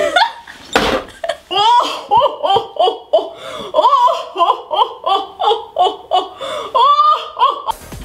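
A woman laughing hard and at length, a belly laugh in quick bursts that rise and fall in pitch several times a second. It stops suddenly near the end.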